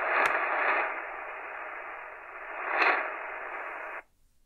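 Shortwave static hissing from a Tecsun PL-398BT portable receiver's speaker as it browses the band. A couple of crackles come near the start and the hiss swells twice before cutting off abruptly about four seconds in.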